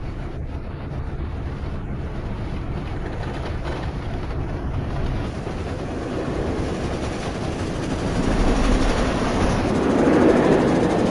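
Film sound effects of a steam train in motion: a dense, continuous noise of the train running, growing louder about eight seconds in.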